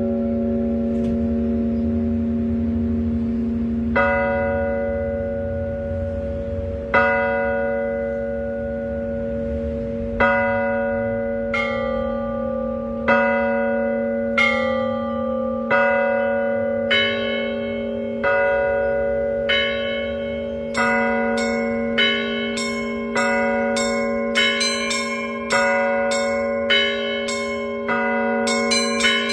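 Orthodox cathedral bells rung in a festive glorification peal (slavoslovny zvon). A low bell tone hums steadily underneath while bells strike, slowly at first, then about every second and a half. Past the middle, smaller, higher bells join and the ringing grows denser.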